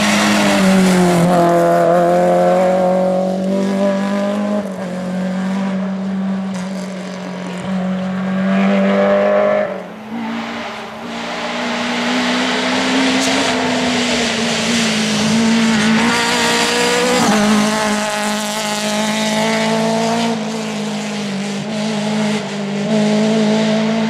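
Rally cars driven flat out on a tarmac stage: engines revving hard, their pitch climbing through each gear and dropping back at every upshift, with a brief lull about ten seconds in as one car goes and the next arrives.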